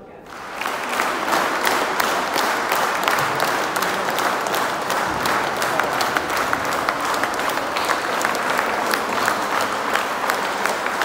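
A church congregation applauding, the clapping rising sharply about half a second in and then going on evenly.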